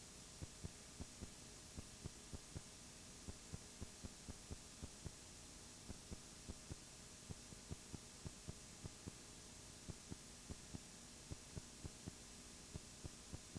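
Near silence: a faint steady hum and hiss with soft ticks about three times a second, the noise floor of a nearly silent audio track.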